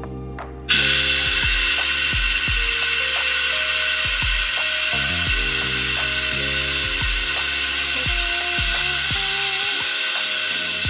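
Compressed air hissing steadily through a venturi cooling-system vacuum tool as it draws vacuum on the motorcycle's cooling system. The hiss starts abruptly under a second in.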